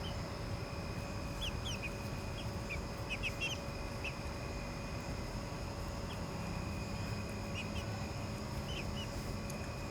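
Backyard chickens foraging, giving scattered short high chirps, most of them in the first half and a few more near the end, over a steady faint high-pitched hum.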